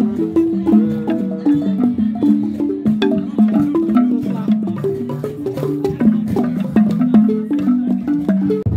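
Gyil, the northern Ghanaian wooden xylophone with gourd resonators, played with mallets: a quick stream of short, pitched wooden notes, several a second.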